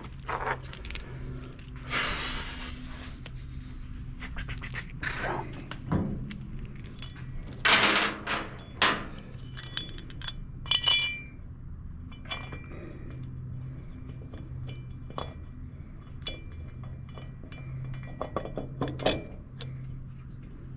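Metal cylinder head bolts clinking and jingling as they are gathered up from a steel workbench and handled, with scattered light metal taps and rustles. A steady low hum runs underneath.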